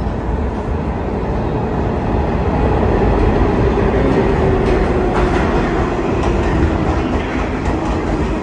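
R46 subway train running into the station, its rumble growing louder as it arrives and the cars pass close by. A faint whine slowly falls in pitch, and the wheels clack over rail joints as the cars go past.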